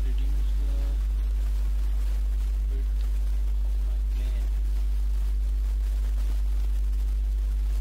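Steady electrical mains hum, a low tone with a ladder of higher overtones, with faint, brief voice sounds near the start and about four seconds in.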